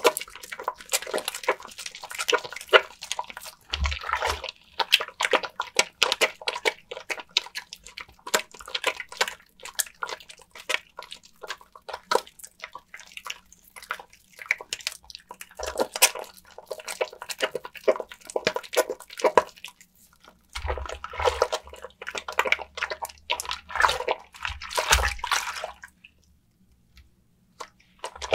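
A soaked bar of soap being lathered with water: dense wet squishing and crackling of foam with dripping water, dropping away for a couple of seconds near the end.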